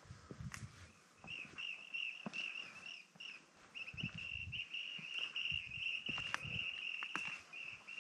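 A bird calling in one continuous, wavering high trill that starts about a second in and runs nearly to the end, breaking off briefly near the middle. Under it, irregular footsteps crunch on rocky ground with a few sharp clicks of stones.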